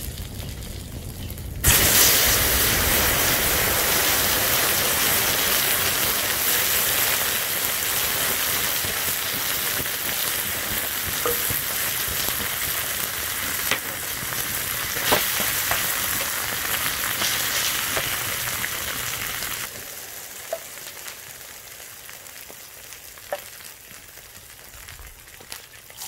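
Burning Oster toaster giving a steady loud hiss with scattered sharp crackles. The hiss starts suddenly about two seconds in and falls much quieter about twenty seconds in, leaving only occasional crackles.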